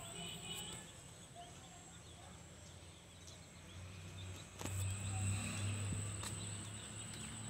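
Faint outdoor ambience with a steady high-pitched whine throughout, joined about two-thirds of the way in by a low rumble and two short knocks.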